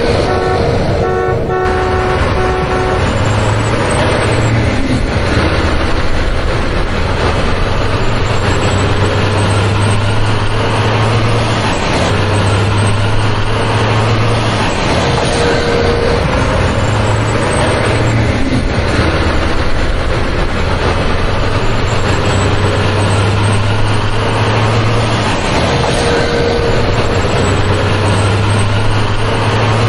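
Heavy truck engine sound, a steady low rumble that swells and eases every few seconds, with short horn toots near the start and again near the end.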